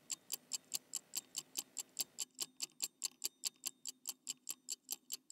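Mechanical watch ticking steadily, about five sharp, high-pitched ticks a second.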